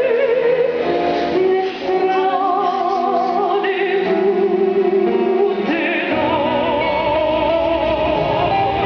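Choir singing with instrumental accompaniment, the held notes sung with a wide vibrato; a deep bass part comes in about six seconds in.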